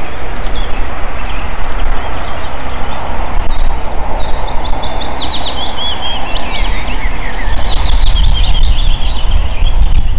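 Wind buffeting the microphone, a loud rushing rumble. Over it a bird gives high chirps in quick runs, starting about three and a half seconds in and again in the last few seconds.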